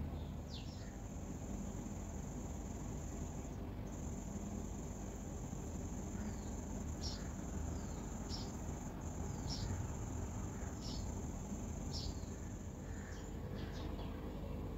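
Insects calling in one steady high-pitched drone that stops near the end. Short falling bird chirps come every second or so over it, above a low background hum.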